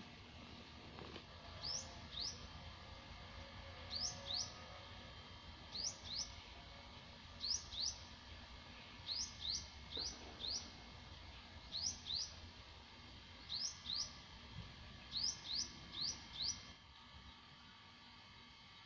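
A bird calling: quick, sharp high notes in groups of two to four, repeated about every two seconds, stopping near the end.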